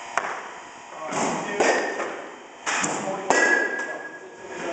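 A few sharp smacks and thuds of a softball being caught in a leather glove, with voices in the room.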